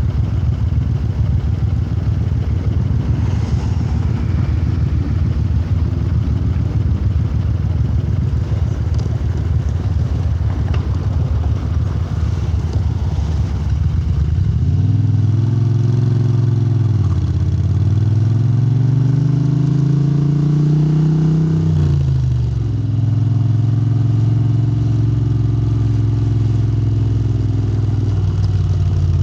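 Moto Guzzi air-cooled 90-degree V-twin with Lafranconi exhausts running under way. A dense low rumble fills the first half. Then the engine note climbs, dips, climbs again, holds steady for several seconds and falls away near the end.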